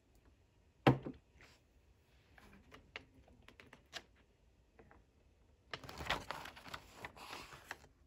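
One loud knock about a second in, then scattered light clicks from a computer keyboard, followed near the end by the dry rustle of a textbook page being turned, lasting about two seconds.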